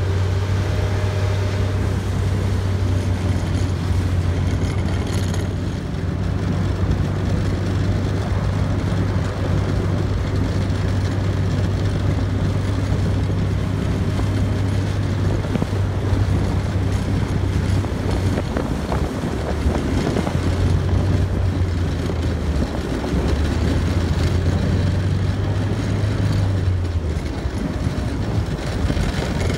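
Tracked armoured vehicle on the move: its engine runs with a loud, steady low drone over a rattling clatter, the drone weakening briefly about two-thirds of the way through.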